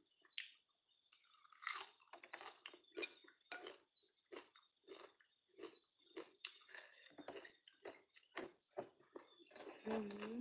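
A person chewing crunchy food close to the microphone, with crisp crunches at about two a second, and a brief hummed voice near the end.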